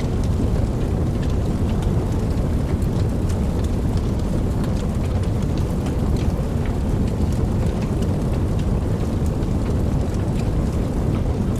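Steady rain falling, with a constant deep rumble beneath it and scattered sharp ticks of individual drops.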